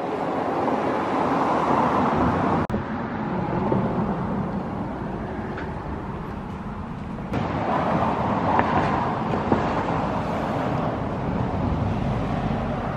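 Road traffic noise from cars passing on a street, a steady noise that swells twice, with two brief clicks where the recording is cut.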